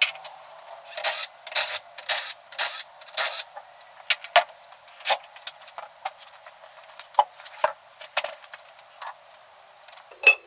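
A string of sharp clicks and clinks from hard parts being handled and set down, about two a second at first and more scattered later, thin-sounding with no bass.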